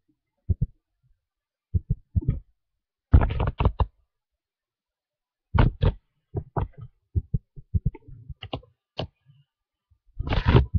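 Irregular soft thumps and knocks, with three short bursts of scuffling noise.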